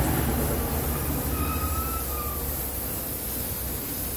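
Compressed-air gravity-feed spray gun hissing steadily as it sprays lacquer finish, over a low steady hum.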